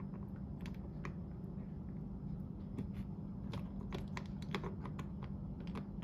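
Light, irregular clicks and taps of small metal lock parts being handled and fitted into an open Emtek mortise lock body, over a steady low hum.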